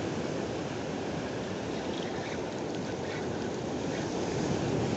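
Ocean surf breaking and washing over coastal rocks, a steady rush of churning water.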